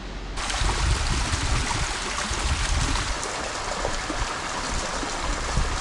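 A steady rushing noise with a low rumble, cutting in abruptly shortly after the start.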